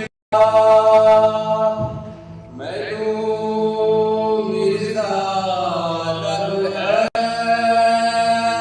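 Vocal music of long, held, chant-like sung notes that bend slowly. The sound cuts out for a moment at the very start, and again for an instant about seven seconds in.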